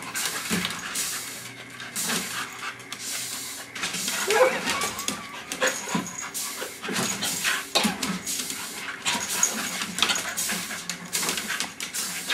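Staffordshire bull terrier panting and sniffing in short, quick noisy bursts while playing with a beetle, with a couple of brief whines about four and six seconds in.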